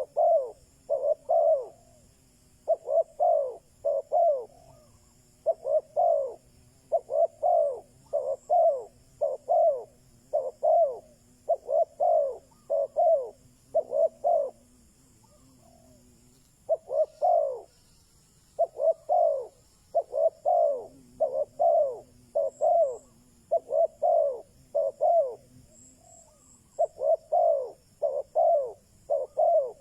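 Spotted dove cooing as a decoy bird: short phrases of low coos repeated over and over, with a pause of about two seconds midway.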